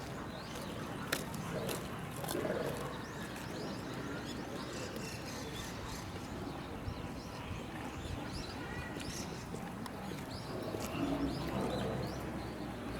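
Small birds chirping in short, repeated rising calls, scattered through the whole stretch over a steady outdoor background.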